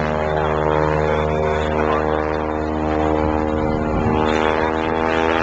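Piston-engine propeller airplane flying, its engine and propeller drone holding a steady pitch.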